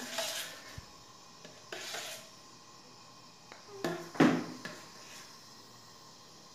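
Kitchen utensils knocking and scraping against a pan and a container in three short clatters, at the start, about two seconds in, and loudest about four seconds in, over a faint steady hiss.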